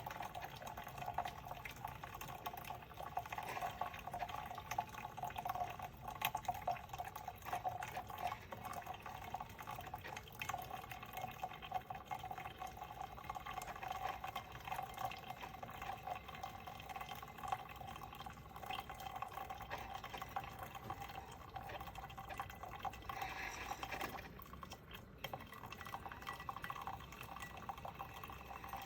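Cuisinart SS-16 coffee maker brewing: a steady trickle of liquid running and dripping into the carafe or cup. It breaks off briefly about 24 seconds in, then goes on.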